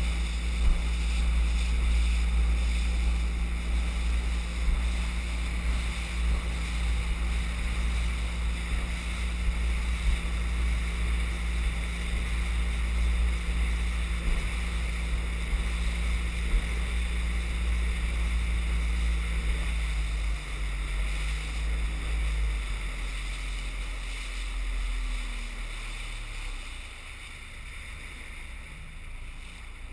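Outboard motor pushing an inflatable boat, running steadily with water rushing past and wind on the microphone. From about twenty seconds in it is throttled back in steps, its hum dropping in pitch and getting quieter as the boat slows.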